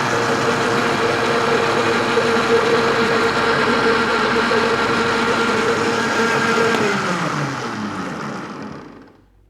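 Blender motor running steadily as it blends egg, lemon juice and cooking oil into mayonnaise. About seven seconds in it is switched off and winds down, its pitch falling, to a stop.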